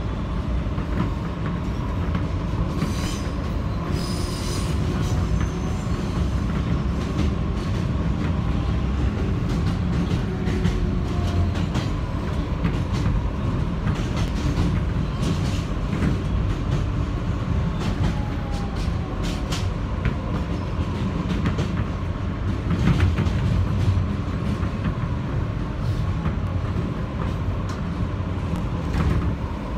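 Kawasaki R160B subway car with Siemens propulsion running along elevated track: a steady rumble from the wheels with frequent clicks over rail joints. A brief high wheel squeal comes about three to five seconds in as it takes the curve.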